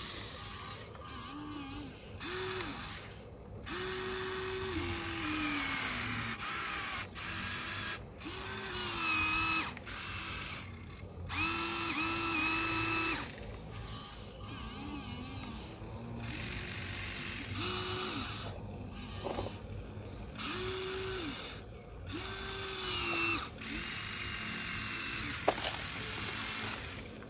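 Huina 1593 RC excavator's electric motors and gearboxes whirring in many short bursts, each starting and stopping and sometimes sliding down in pitch as the boom, arm and bucket move. A single sharp click comes near the end.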